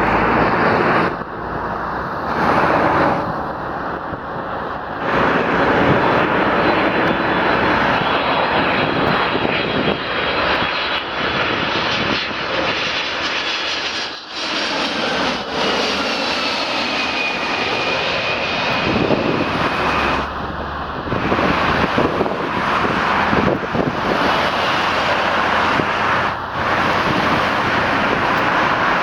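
Boeing 767-300ER jet engines during landing: a steady roar with a high whine that slides down in pitch through the middle as the airliner passes.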